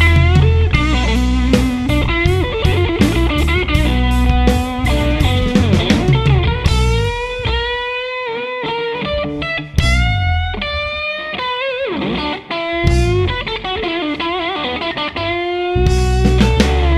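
Live blues band: electric guitar soloing with string bends and vibrato over bass and drums. About six and a half seconds in, the bass and drums drop out and the guitar plays on alone. The full band comes back in near the end.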